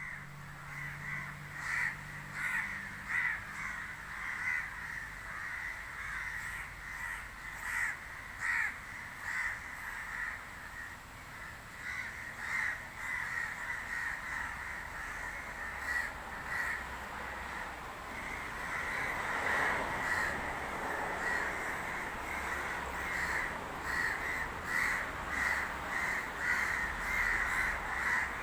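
A flock of crows cawing over and over, many calls overlapping. The chorus grows denser and louder about two-thirds of the way through.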